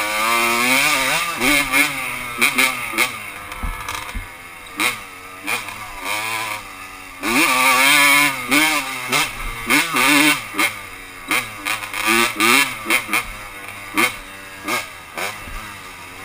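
1987 Honda CR125's two-stroke single-cylinder engine revving up and down under the throttle. There are long rising pulls near the start and about seven seconds in, then a string of short quick throttle bursts.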